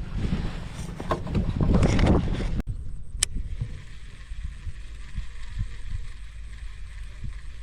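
Wind buffeting the microphone as a low rumble, heavier for the first couple of seconds. The sound changes abruptly about two and a half seconds in, a single sharp click follows, and a steadier, weaker rumble continues.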